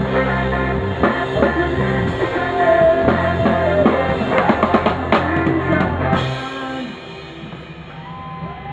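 Live rock band playing, with a drum kit and electric guitars. The drumming grows busy, then the full band drops out about six seconds in, leaving a quieter ringing with a few held notes as the song ends.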